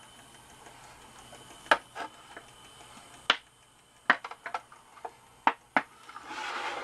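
A scattered series of sharp plastic clicks and taps, about nine in all, some in quick pairs, as the ski slope's plastic top is handled and shifted, with a brief soft rustle near the end.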